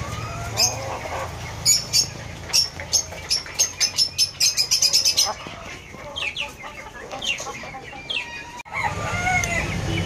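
Chickens calling in wire-mesh aseel pens: a string of short, sharp high chirps that quickens into a rapid run about halfway through, then a few falling peeps. After a break near the end, a low steady hum comes in under a few softer calls.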